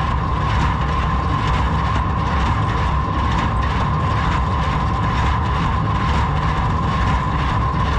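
Ford 3000 tractor's three-cylinder engine running steadily while driving a New Holland 273 square baler, a low rumble with a steady high whine over it.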